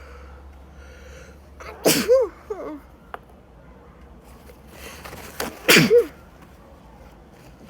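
A woman sneezing twice, about two seconds in and again about six seconds in. Each sneeze is a sudden, loud, voiced burst.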